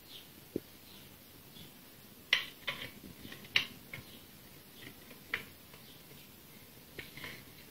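Light metallic clicks and clinks of small steel parts being handled and fitted on a homemade cutter grinder's fixture: scattered taps, the sharpest about two and a half and three and a half seconds in.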